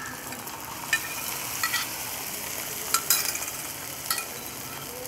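Boiled mutton pieces and their cooking liquid hitting hot oil with fried onions and ginger-garlic paste in a nonstick kadai, sizzling steadily. A metal spoon scrapes and clinks against the cookware about four times.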